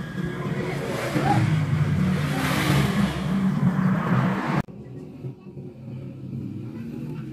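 A motor vehicle engine running, its noise swelling and easing; it cuts off abruptly a little past halfway, leaving a fainter engine hum.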